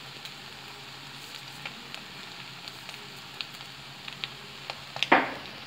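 Chicken fried rice frying on low heat in a black kadai: a steady faint sizzle with scattered light crackles, and one short louder sound near the end.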